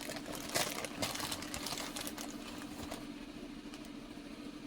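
Dry pancake mix being scooped and poured: grainy scraping and rustling with small clicks, which die down about three seconds in. A steady low hum runs underneath.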